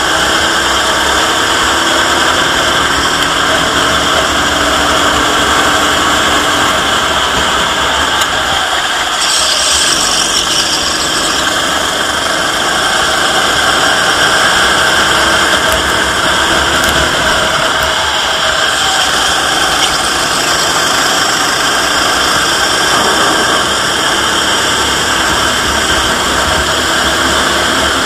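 Onboard sound of a go-kart at racing speed: its engine's pitch slides up and down as it accelerates and lifts through the corners, half buried under a loud, steady rush of wind and mechanical noise.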